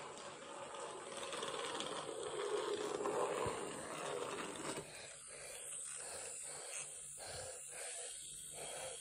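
Battery-powered TrackMaster toy engine running around plastic track, its small motor and gears whirring with the wheels rattling on the track, loudest a few seconds in. From about halfway through the sound turns choppy as the engine is handled.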